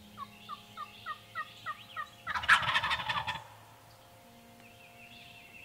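Wild turkey calling: a quick run of about seven short yelps, then a loud gobble a little over two seconds in that lasts about a second.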